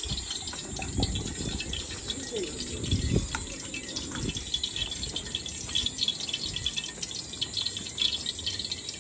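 Open wood cooking fire crackling and hissing steadily, with many small pops, under occasional low thumps.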